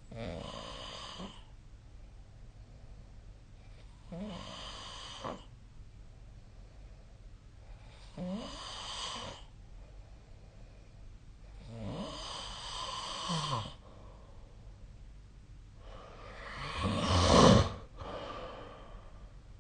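A sleeping person snoring, five snores about four seconds apart, each a second or so long; the last is the loudest.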